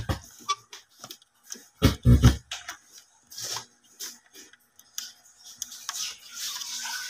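Clicks and scrapes of RCA plugs and leads being handled and pushed into an amplifier's input jacks. About two seconds in there is a short, loud double burst of low mains hum through the amplifier's speaker, the ground hum that comes when the input plug is touched.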